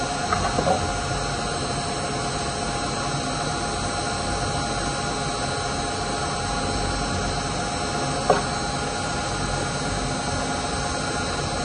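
Steady machine hum and hiss, with a few light clicks about half a second in and one sharp click a little after eight seconds from small plastic parts being handled.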